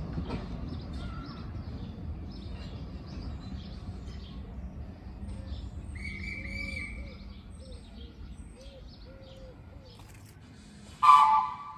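Small birds chirping and singing over a low rumble that fades away, with a row of short repeated calls in the middle. Near the end comes one brief, loud, harsh blast.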